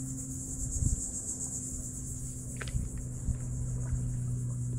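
Insects in the mangroves buzzing steadily, a high-pitched shimmer over a low steady hum, with a few faint knocks.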